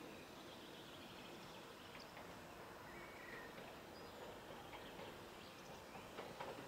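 Faint outdoor background noise with a few short, faint bird chirps, and a few faint clicks near the end.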